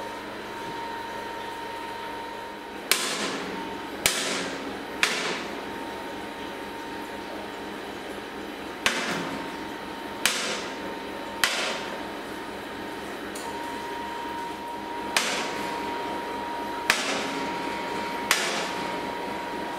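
Knife cutting cheddared curd slabs in a stainless steel vat, the blade knocking sharply on the steel nine times in three groups of three, each knock ringing briefly.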